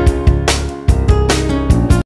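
Background music with a steady beat, cutting off abruptly at the end.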